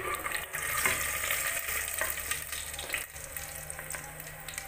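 Sliced onions frying in hot oil in a metal pot, a steady sizzle, with a slotted metal spoon clicking and scraping against the pot as the onions are lifted out.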